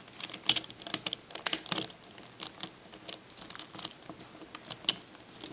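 Plastic pieces of a V-Cube 4 puzzle clicking and knocking as small inner pieces are pushed and snapped into place, an irregular string of sharp clicks.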